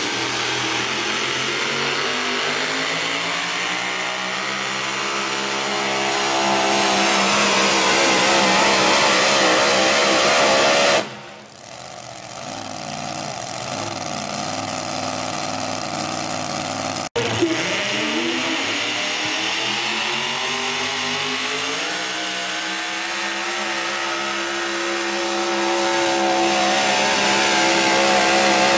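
Super-modified four-wheel-drive pulling trucks' engines at full throttle under load on the sled. The first engine's pitch climbs and holds high, then falls away about eleven seconds in and runs quieter. It breaks off suddenly partway through, and a second truck's engine rises and runs hard at high revs.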